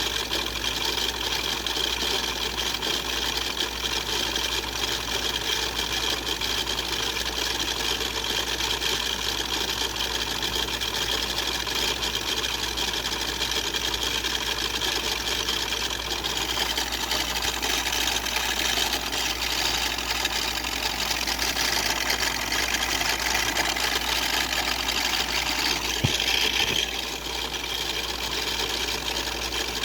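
Toy car spinning fast on a makeshift rig: a steady mechanical whir with a constant high whine. A single knock comes near the end, after which the sound is slightly quieter.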